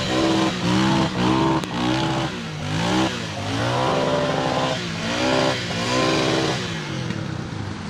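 Honda Foreman Rubicon 500 ATV's single-cylinder engine revving up and falling back again and again, about once a second, as it spins reverse donuts in slushy snow and mud.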